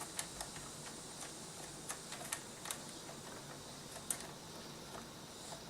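Faint, irregular small clicks and ticks of metal fasteners being handled and fitted onto a CPU cooler's mounting hardware, a few sharp taps a second or so apart.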